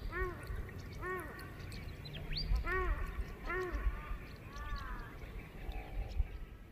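A bird calling a run of short cries, each rising then falling in pitch, about one a second, with a few thin higher whistles from other birds between them.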